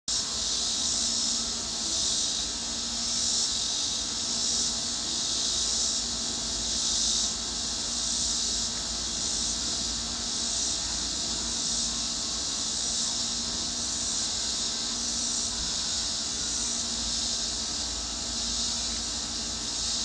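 Chorus of insects making a continuous high-pitched buzzing trill that swells and fades about once a second, over a steady low hum.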